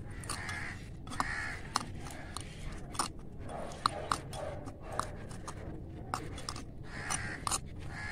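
Small utensil clicking and scraping against a miniature clay pot as chopped onion and tomato are stirred and sautéed. A crow caws a few times.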